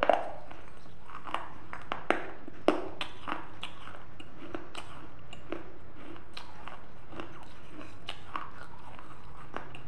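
A person chewing pieces of broken baked-clay pot close to the microphone: a few sharp crunches in the first three seconds, then steady chewing with small clicks.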